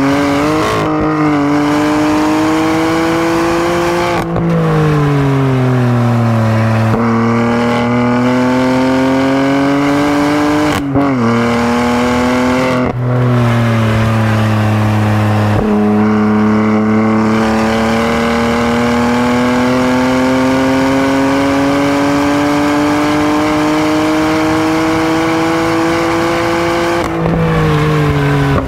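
BMW F80 M3's twin-turbo straight-six being driven hard on a track. The engine note climbs steadily under acceleration and falls away under braking, with several brief breaks and jumps in pitch as the six-speed manual is shifted.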